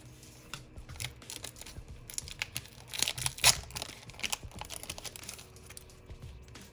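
Crinkling of a Pokémon booster pack's foil wrapper as it is handled and the cards are slid out: a run of short crackles, loudest about three and a half seconds in.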